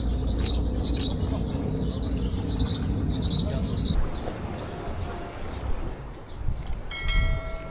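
A small bird calls the same sharp, high note over and over, about twice a second, for the first half, over a steady low rumble. About a second before the end there is a brief steady tone with many overtones, like a squeal or a whistle.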